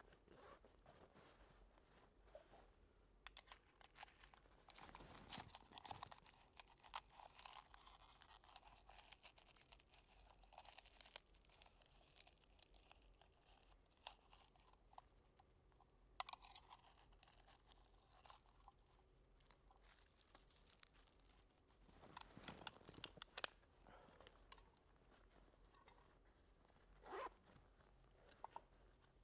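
Faint, scattered crackling, snapping and tearing of dry twigs and bark being handled at a fire lay, with crunches in the snow. It comes in spells about five to twelve seconds in, around sixteen seconds, and again around twenty-two to twenty-three seconds, where it is loudest.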